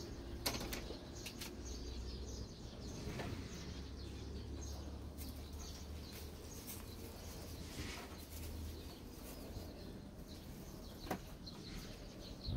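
Stray kittens playing indoors: scattered light taps, scuffles and rustles, over a low steady hum that fades out near the end.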